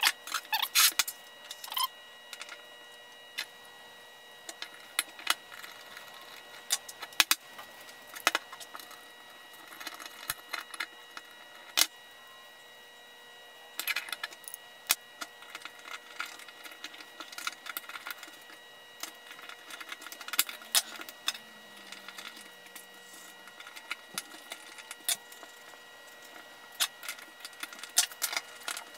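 Irregular clinks and clicks of steel hand-plane parts handled and fitted together: the Stanley Bailey No. 4's blade, chip breaker and frog knocking against each other and against the cast iron body.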